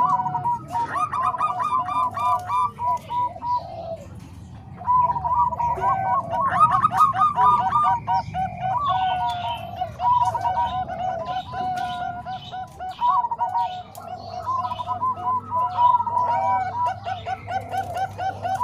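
Zebra doves (perkutut) cooing, two voices overlapping in quick runs of short repeated coos, with a brief lull about four seconds in.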